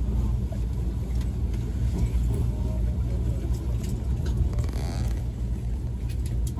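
Running sound of a Nankai 50000 series 'Rapi:t' electric train: a steady low rumble from wheels and motors, with scattered clicks from the track and a brief hiss about four and a half seconds in.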